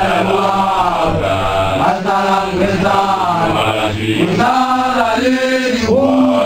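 A group of men chanting together, with low voices holding steady notes under a higher line that rises and falls.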